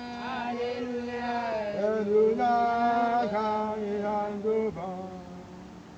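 Voices singing a church praise chorus together, holding long notes with several pitches at once; the singing drops lower near the end.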